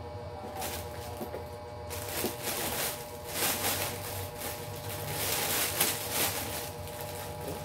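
Clear plastic wrapping crinkling and rustling as a handbag is handled and unwrapped, with dense crackling from about two seconds in.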